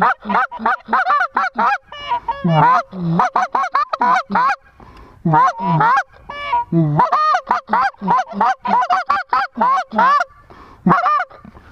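Hand-blown goose calls worked in fast runs of short clucks and honks, several notes a second with brief pauses between runs, calling to a flock of lesser geese.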